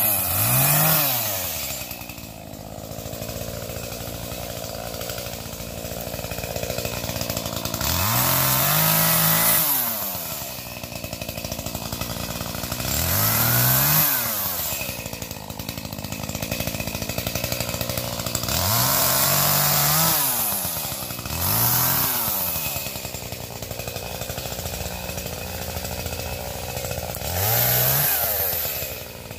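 Chainsaw cutting limbs off a felled tree: the two-stroke engine idles between cuts and revs up about six times, each rev rising in pitch and then falling back to idle.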